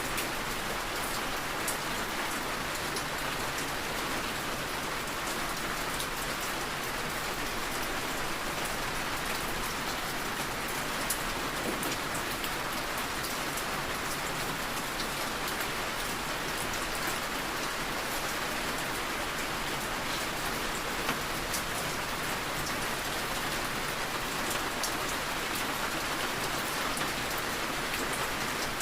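Steady rain falling, an even hiss with scattered small drop ticks and no change in intensity.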